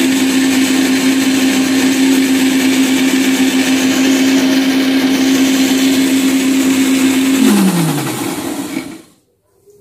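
Electric mixer grinder with a steel jar running steadily at a loud, even pitch as it blends milk and oil into mayonnaise. About seven and a half seconds in it is switched off, and its pitch slides down as the motor winds to a stop.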